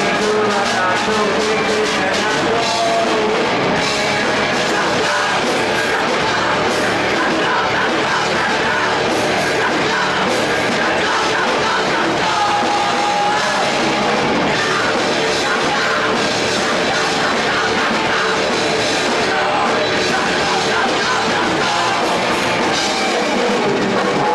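Live rock band playing a song, loud and steady.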